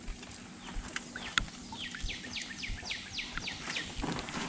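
A songbird singing a quick run of about eight downslurred whistled notes, about four a second, after a single sharp click about a second and a half in.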